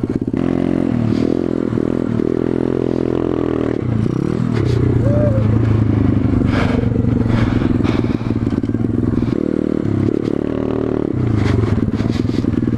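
A small four-stroke pit bike engine being ridden. It revs up and eases off several times, with the pitch dropping and climbing again with throttle and gear changes.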